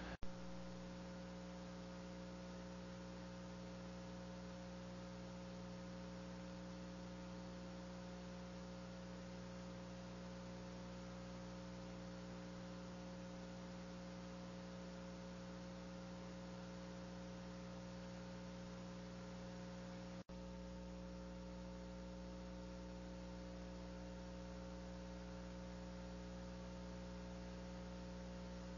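Steady electrical mains hum made of several fixed tones over a faint hiss, with a momentary dropout about twenty seconds in.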